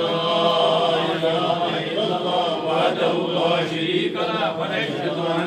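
Men's voices chanting devotional prayers together, a steady, continuous recitation with several voices layered.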